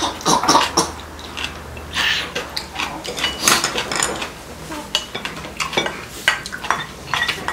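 Mukbang eating sounds: soup slurped from spoon and chopsticks, chewing, and metal spoon and chopsticks clinking and scraping against ceramic bowls, in many short, irregular bursts.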